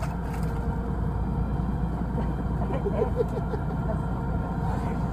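Fishing boat's engine running steadily: an even, low drone.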